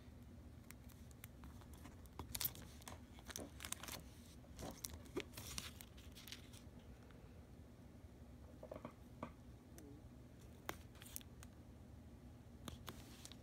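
Faint crinkling and crackling of thin plastic smart film and copper foil tape being handled and pressed down by hand. The rustles come in short, irregular bouts, busiest from about two to six seconds in.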